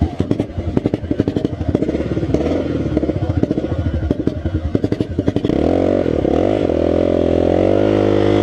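Quad (ATV) engine running under way, at first in rapid uneven pulses with some clatter, then from about five seconds in settling into a steadier, higher-revving drone.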